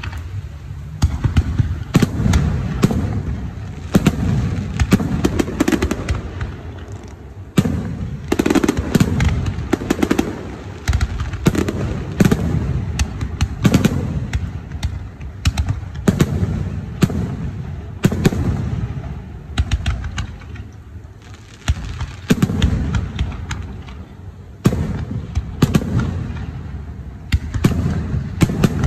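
Fireworks display: many sharp bangs and crackles in quick succession over a low rumble, swelling and easing every couple of seconds.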